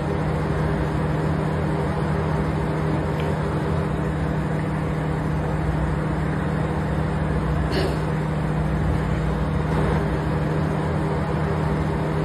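A steady mechanical hum with an even rushing noise and a low drone, unchanging throughout.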